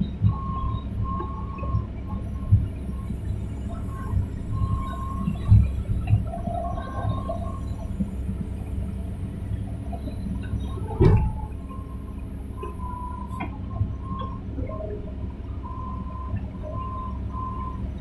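Hitachi hydraulic excavator at work: the diesel engine runs steadily, with a high whine that comes and goes and scattered knocks, and one loud clank about eleven seconds in.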